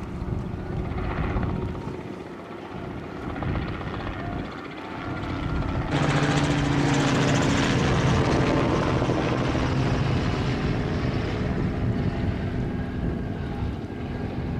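Steady engine drone with a noisy rush that gets suddenly louder about six seconds in, carrying two steady low hums.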